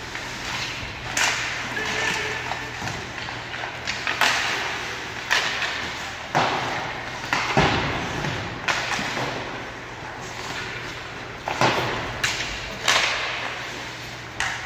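Ice hockey play: about ten sharp knocks of puck and sticks striking the boards and glass, spaced irregularly, each echoing in the arena over a steady background hum.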